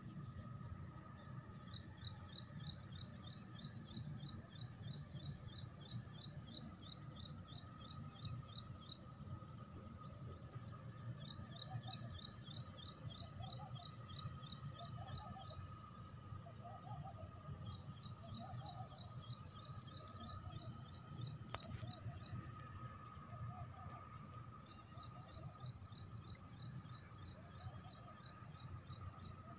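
A bird calling outdoors in long bouts of quick, repeated high down-slurred notes, about three a second, with short pauses between bouts; a softer, lower call repeats about every second and a half through the middle, over a steady low rumble.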